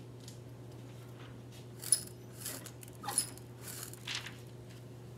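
Sharp clicks and rustles of plastic transparency sheets being handled and laid on an overhead projector, loudest about two and three seconds in, over a steady low hum.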